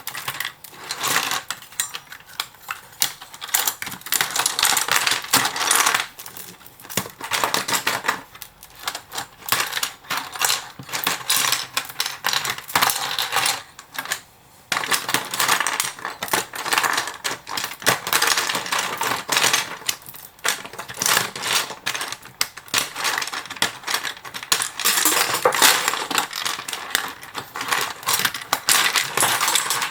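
Plastic Lego bricks being pried apart and handled: continual clicking and clattering of small hard plastic pieces, with a brief pause about halfway through.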